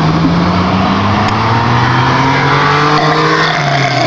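A girl's long, low burp, drawn out over several seconds, its pitch rising slightly and then sinking, over a steady loud rushing noise.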